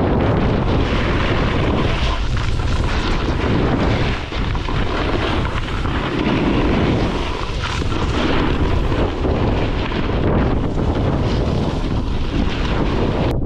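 Wind buffeting the microphone of a camera carried by a moving snowboarder, a loud rumble mixed with the rush and scrape of the snowboard sliding over packed snow, swelling and easing as the rider turns.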